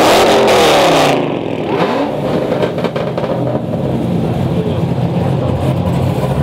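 A car's engine revved hard for about a second, the loudest part, then falls back to a steady low rumbling idle, with one more short rise in pitch a moment later.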